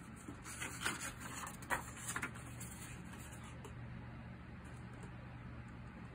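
A picture book's paper page being turned by hand: a few faint rustles and light taps in the first two seconds or so.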